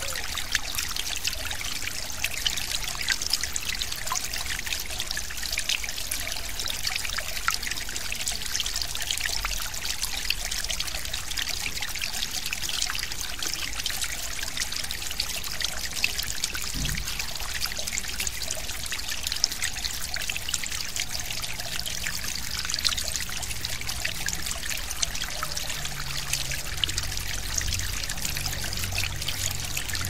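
Forest stream flowing and trickling, a steady splashing hiss full of fine droplet ticks. A faint low hum comes in during the last third.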